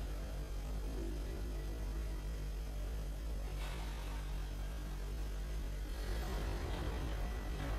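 Low, steady electrical hum from guitar amplifiers, with a soft hiss that swells briefly about halfway through and again near the end.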